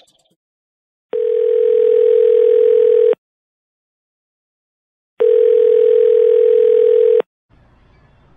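Telephone ringback tone heard by the caller: two steady two-second rings separated by about two seconds of silence, the sign that the called phone is ringing and not yet answered.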